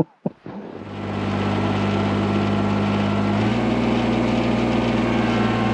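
Two short clicks, then a snowblower engine running steadily from about a second in; its pitch steps up a little about halfway through.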